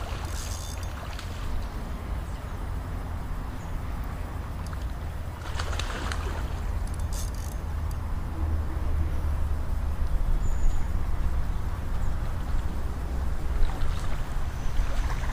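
Steady low rumble of wind on the microphone, with a few brief rustling noises, one about six seconds in and another near the end.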